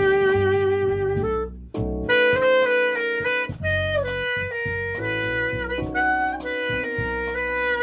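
Tenor saxophone playing a slow jazz ballad line over electric keyboard chords. A long held note breaks off about a second and a half in, then the sax plays a phrase of sustained notes that step up and down in pitch.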